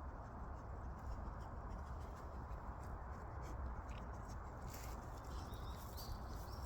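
Faint footsteps and scuffling of a person walking a large dog, under a steady low rumble on the microphone.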